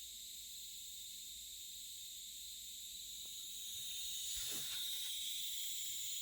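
Faint high-pitched hiss from the speakers of a 16-inch 2019 MacBook Pro, the unwanted hiss it makes during and after audio playback. The hiss is steady, gets a little louder about four seconds in, and has a brief soft rustle partway through.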